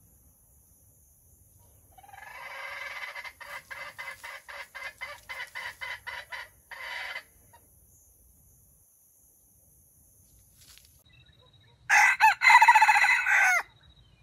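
A chicken clucks in a quick run of calls, about three a second, for some five seconds. Near the end a red junglefowl rooster gives one short, loud crow.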